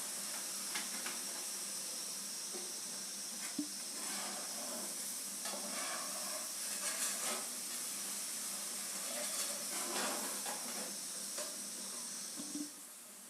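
Spiced gravy in a hot pan hissing and sizzling just after water has been added, with a few light clicks of a spoon stirring; the hiss drops away sharply near the end.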